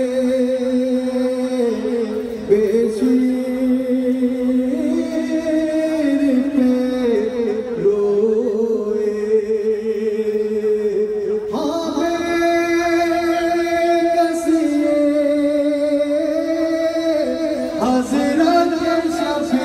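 A noha, a Shia mourning lament, sung in long drawn-out notes that step up and down in pitch.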